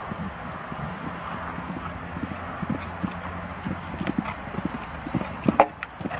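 Horse cantering on a sand arena, its hooves thudding in a steady rhythm, with a few louder hoof impacts near the end as it jumps a fence.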